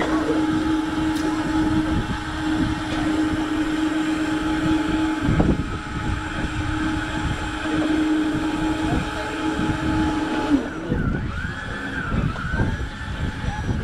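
A motor on a fishing boat running with a steady hum and a constant tone, over a noisy wash. The tone breaks briefly about five seconds in and stops about ten seconds in, after which rising and falling whistling tones are heard.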